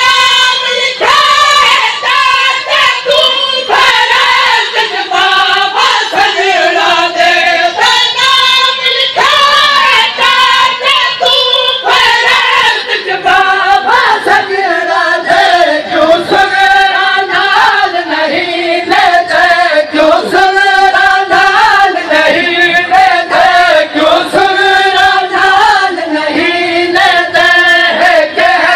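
A noha, a Shia lament, sung by many voices in unison as a chant, with steady hand slaps of chest-beating (matam) keeping the beat.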